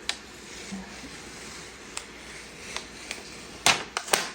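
Unboxing handling of an iPad and its plastic wrapping: a soft steady rustle with a few light taps, then two louder short crackles near the end.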